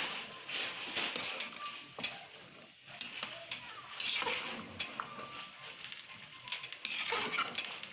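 Spoon or ladle stirring and scraping chicken and masala around a large cooking pot, in uneven strokes with occasional clinks against the metal.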